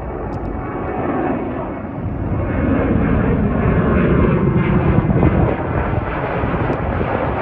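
Jet engines of a Southwest Airlines Boeing 737 climbing overhead after takeoff: a steady rumbling rush that grows louder about two seconds in, with a falling pitch sweep as it passes.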